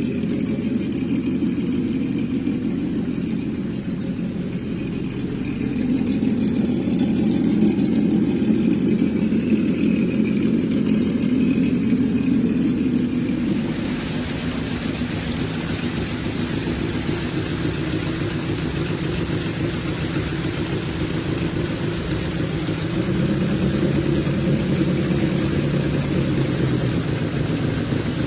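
Simulated engine sound from the ESS-Dual sound module on a Traxxas TRX-4 RC crawler, played through its speaker and running steadily at idle. Loudness rises slightly about six seconds in, and a steady high whine joins about halfway through.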